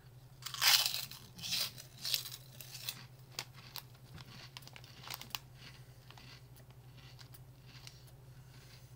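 Hot and spicy pork rinds crunching as they are bitten and chewed close to the microphone. A few loud crunches come in the first three seconds, then fainter crackles die away by about halfway.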